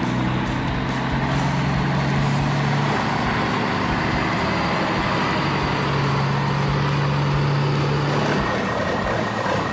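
Heavy truck engine running steadily: a low hum over a noisy rumble.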